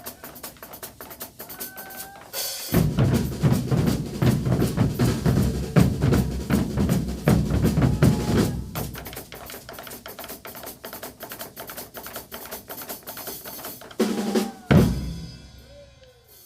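Percussion group playing a Caboclinhos rhythm: fast, steady snare-drum strokes with bass drums. The bass drums come in loud a few seconds in and drop out halfway through. Near the end come two heavy ensemble hits, and then the sound dies away.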